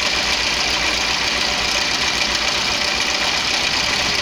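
First-generation Ford Ka engine idling in neutral with a steady metallic rattle. The owner takes it for the timing chain slapping because it is slack, with a worn chain tensioner.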